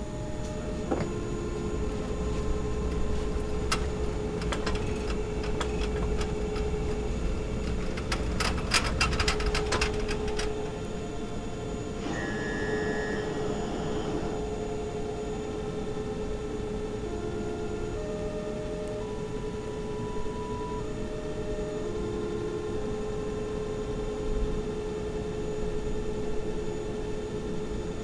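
Hospital machine ambience: a steady electronic hum tone with short machine beeps at several different pitches over a low rumble, and a run of rapid clicks about eight to ten seconds in.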